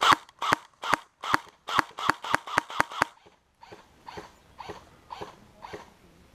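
Airsoft guns firing single shots: about ten sharp, loud shots in quick succession over the first three seconds, then five fainter shots about half a second apart.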